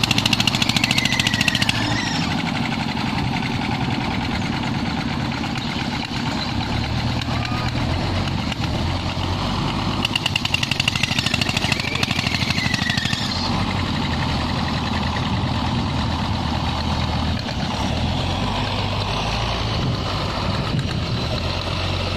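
Hino diesel engine of a wooden tug boat running steadily under load while towing a large log, with two stretches of harder, faster pulsing: once at the start and again about ten seconds in.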